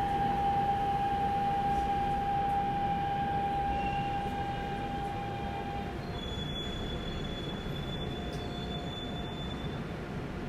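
Daegu Metro Line 1 train heard from inside the carriage: steady running rumble with a high electric whine from the traction drive. The whine holds one pitch, then about six seconds in it changes to a fainter lower tone with a thin high whistle above it.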